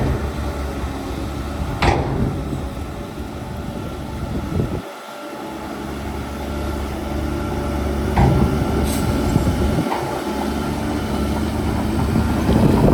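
Heavy diesel engine of a construction vehicle running steadily under load, with a few sharp metallic knocks. The sound cuts out abruptly about five seconds in and resumes, as at a cut between clips.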